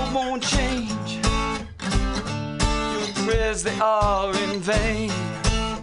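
Acoustic guitar strummed in a steady rhythm, with a man singing a wavering vocal line over it.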